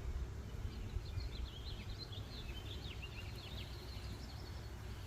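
A small bird singing a quick run of high chirping notes for a few seconds, over a steady low rumble.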